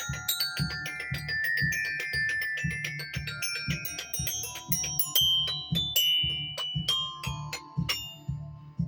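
Mallet percussion played fast: quick runs of struck, ringing metal- or bar-like notes over a repeating low beat. In the last few seconds the runs thin out to a few scattered notes.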